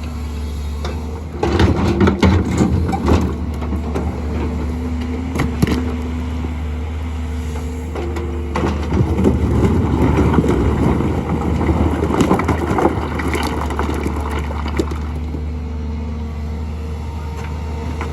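Excavator's diesel engine running steadily, with clattering of stone as it is loaded into a truck: a burst about two seconds in and a longer stretch in the middle.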